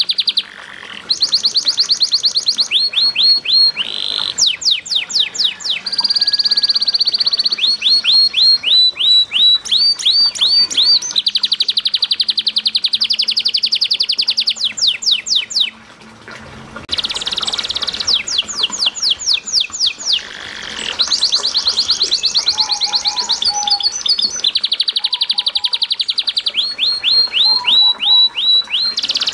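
Domestic canary singing a long, varied song of fast trills and rolls, rapid repeated notes switching from one phrase to the next, with brief breaks in the song twice.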